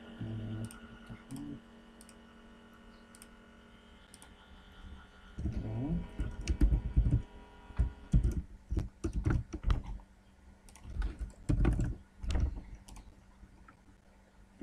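Typing on a computer keyboard: irregular runs of quick keystrokes that start about five seconds in, over a faint steady hum.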